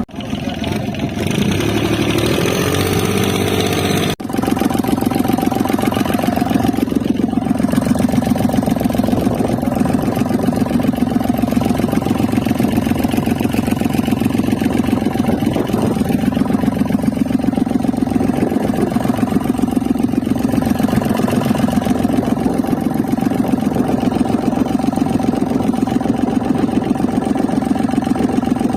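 A mid-sized engine running steadily with a fast, even beat. There is an abrupt break about four seconds in, before which the pitch rises a little.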